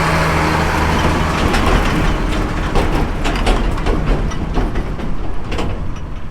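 A vehicle engine running at a steady speed under loud road noise, with frequent knocks and rattles over it from about halfway through, as from farm equipment in transit.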